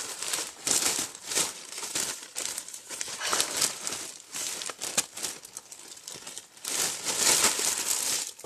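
Plastic packaging bag being crinkled and rustled by hand, in irregular bursts with sharp crackles throughout.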